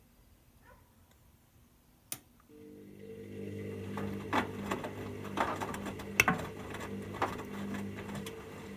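Hoover OneTouch washing machine in its final rinse: a sharp click about two seconds in, then the drum motor starts with a steady hum, with irregular clicks and knocks as the drum turns.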